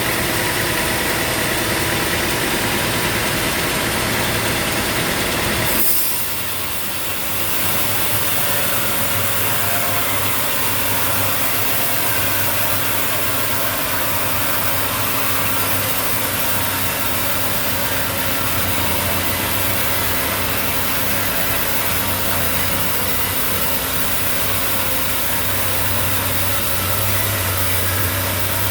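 Sawmill machinery running steadily with an engine-like drone, with a sudden short dip in level about six seconds in.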